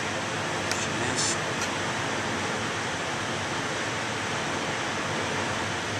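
Steady rushing noise of kitchen ventilation, with a few faint light ticks about a second in as the knife works along the quail carcass.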